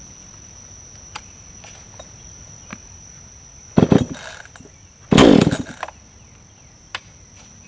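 Gas chainsaw being pull-started: a starter-cord pull a little under four seconds in, then a second pull about a second later on which the two-stroke engine fires and runs briefly, under a second, the loudest sound here. It starts easily, as a properly tuned saw should.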